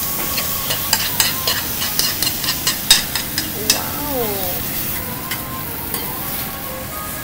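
Okonomiyaki batter with cabbage and pork sizzling on a hot iron teppan griddle as it is tipped out of a bowl, with a metal spoon clinking and scraping against the bowl in a run of sharp clicks during the first three seconds.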